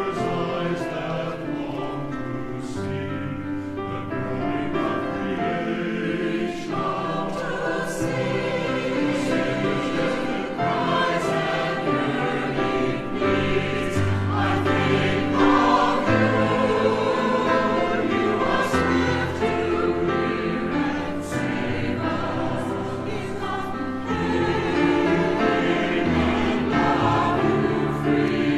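Church choir of men's and women's voices singing together in parts, holding long notes that change in pitch, with steady low bass notes beneath.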